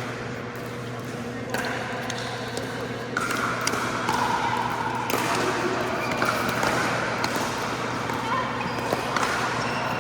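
Pickleball paddles striking a plastic ball: several sharp pops on an indoor court, over the chatter of players in a large hall.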